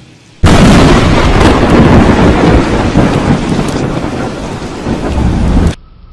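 Thunder from a very close lightning strike: a sudden, very loud crack about half a second in, rumbling on loud for about five seconds with rain falling, then cutting off suddenly.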